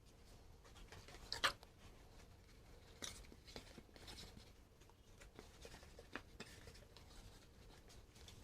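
Faint scratching and rubbing from handling cardboard, with scattered light taps and one sharper knock about a second and a half in.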